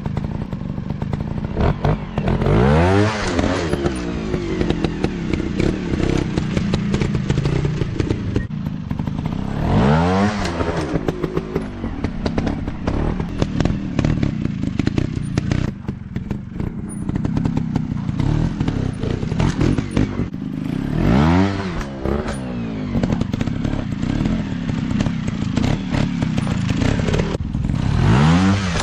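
Dirt bike engine running on a trail, its pitch climbing and falling away in about four strong surges as the throttle is opened and closed.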